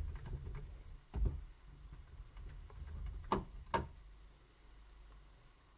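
A screwdriver working on the small screws under a laptop's removed keyboard: a few sharp clicks and taps of metal on the screws and plastic case, one about a second in and two close together a little past the middle, over a faint low hum.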